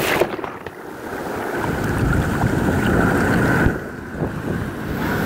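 Ocean surf at the waterline: waves breaking and foamy water rushing around the microphone, with wind buffeting the microphone. The wash swells and ebbs, dropping off about a second in and again near the end.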